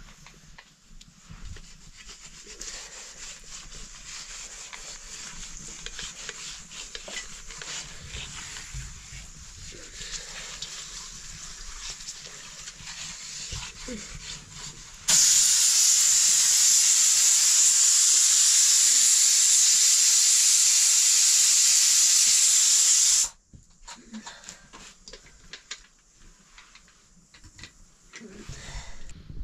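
Aluminium pressure cooker on a wood fire venting steam: a loud, steady hiss starts suddenly about halfway through and cuts off abruptly some eight seconds later. Before it there is only a faint hiss with small crackles and knocks from the fire and handling.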